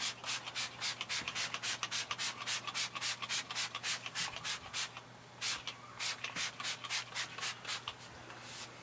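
Tire shine sprayed from a hand spray bottle onto a tire's sidewall in quick repeated squirts, about four a second, then sparser after a short pause about halfway through.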